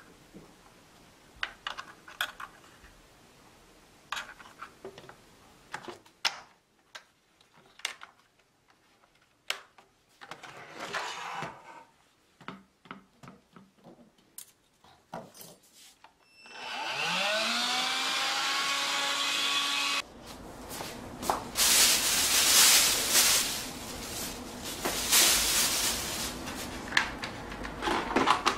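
Light clicks and scrapes of metal tweezers picking dust out of a cordless stick vacuum's floor head. About two thirds of the way in, a small motor spins up with a rising whine and runs steadily for a few seconds, then stops abruptly. It is followed by louder crinkling of a plastic bag and sharp clicks as the vacuum's dust bin is emptied into the bag.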